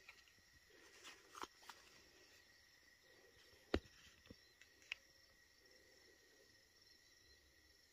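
Faint steady high-pitched chorus of night insects such as crickets, with a few small clicks and one sharp click a little under four seconds in.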